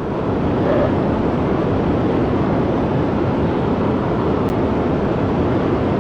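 Jet aircraft engine noise: a loud, steady roar with no clear tone that sets in at the start and holds evenly.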